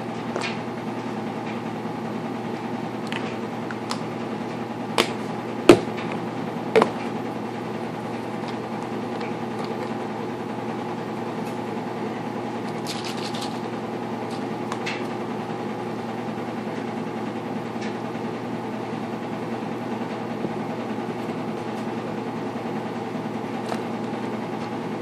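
A steady mechanical hum from a household appliance or fan, with a few sharp knocks of plastic baby bottles being handled and set down on a countertop. The loudest knock comes about six seconds in.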